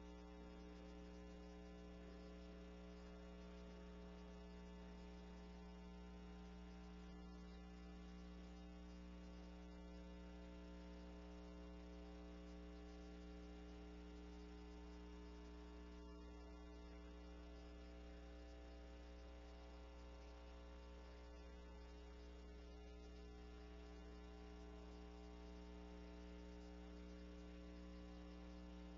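Near silence with a steady, low electrical mains hum and its overtones.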